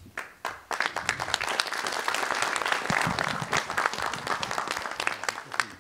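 Audience applause, many hands clapping: a few scattered claps, then dense clapping within the first second, ending just before the close.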